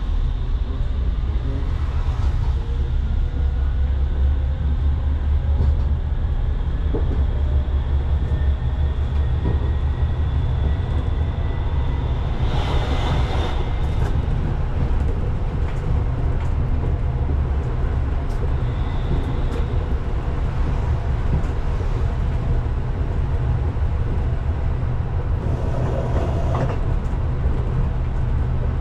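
Pragoimex T3R.EV tram running between stops, a steady low hum of the running gear and traction equipment with a faint rising whine early on. Two short bursts of hiss break in, one about halfway and one near the end, and a brief high squeal comes about two-thirds through.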